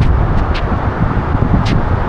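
Tumpak Sewu waterfall heard close up: a loud, steady, heavy rushing of falling water, with wind buffeting the microphone. A few short sharp ticks cut through it.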